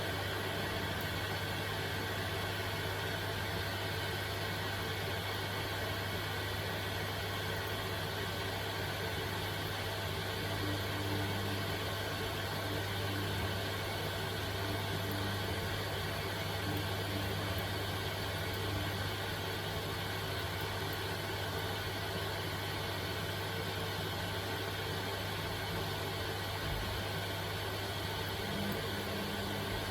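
Samsung washing machine running in the saturation stage at the start of a 60°C baby programme: a steady low hum with an even hiss.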